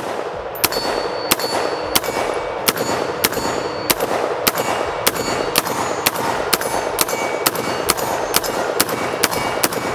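Maximum Defense PDX AR pistol in 7.62x39, with a 5.5-inch barrel and Hate Brake muzzle brake, fired in a steady string of about twenty loud shots, roughly two a second. Each shot is followed by a short metallic ring from a steel target being hit.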